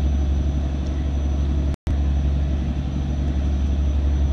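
Fishing boat's inboard diesel engine running steadily, a low even hum. The sound drops out for an instant just under two seconds in.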